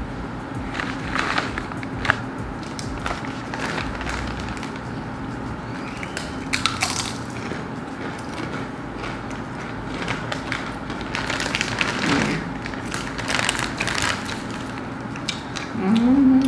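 Close crunching of rainbow Doritos tortilla chips being chewed, a run of irregular crisp crackles, with a short hum of voice near the end.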